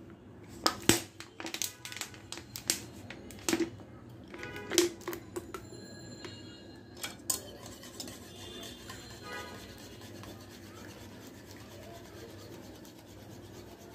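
Kitchen utensils being handled: a quick series of sharp clicks and knocks over the first five seconds, two more about seven seconds in, then quiet rubbing. The sounds come from a bottle of liquid date-palm jaggery and a mixing bowl as the jaggery is added to the egg batter.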